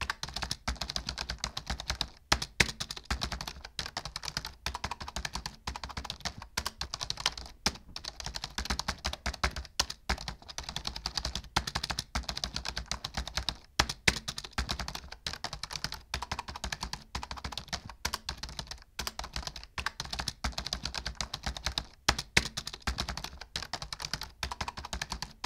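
Computer keyboard typing fast and without pause, many keystrokes a second, with an occasional louder key strike every few seconds.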